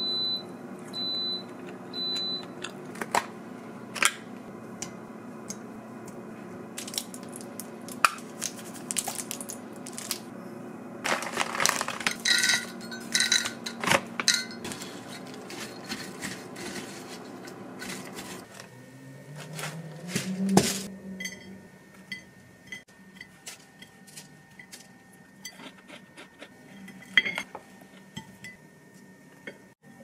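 Kitchen handling sounds: utensils clinking and scraping against bowls and dishes, and a wooden spatula stirring in a glass measuring cup. Three short high beeps sound at the start, and a low steady hum runs until about two-thirds of the way through.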